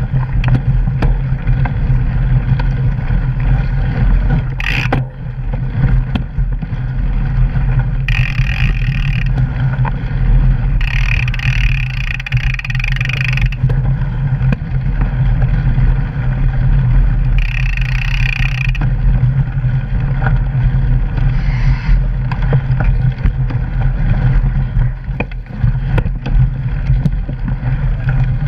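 Mountain bike riding down forest singletrack, heard from a camera mounted on the bike: a steady, loud rumble of tyres on gravel with wind on the microphone, and frequent knocks and rattles as the bike rolls over roots and stones. A high buzz from the rear hub freewheeling comes and goes three times, around 8, 11 to 13 and 17 to 18 seconds in.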